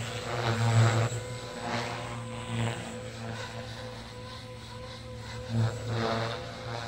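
JR Forza 450 electric radio-controlled helicopter flying: a steady motor-and-rotor whine that swells and fades as it manoeuvres, loudest about a second in and again near six seconds.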